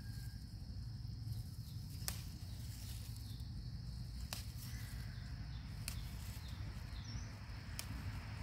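A hand moving through and handling holy basil plants: four short sharp clicks about two seconds apart over a low steady rumble.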